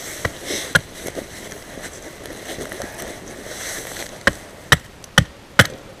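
Wood being chopped into kindling: sharp strikes, twice near the start and then a steady run of about two a second in the last two seconds. The chips being split are damp.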